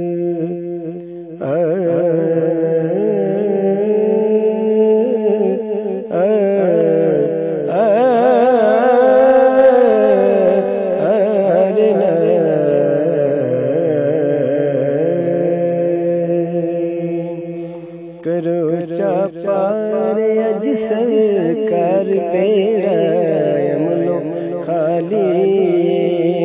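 A man singing a South Asian folk-devotional song with wavering, ornamented vocal lines over a steady sustained drone accompaniment. The voice comes in about a second and a half in and breaks off briefly about two-thirds of the way through.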